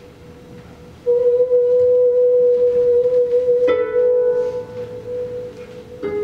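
Experimental pedal-harp music: a steady, sustained mid-pitched drone comes in suddenly about a second in and holds, fading in the second half. Harp strings are plucked over it, one ringing note a little past halfway and another near the end.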